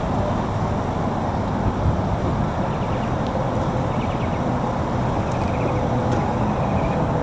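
Steady rumble of road traffic and vehicle engines, with a faint steady hum running through it.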